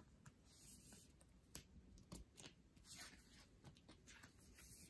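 Faint rustling and small clicks of card-stock postcards being handled and slid into plastic binder sleeves.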